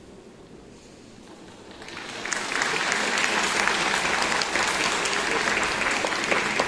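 Audience applauding: a quiet stretch, then clapping breaks out about two seconds in and carries on steadily.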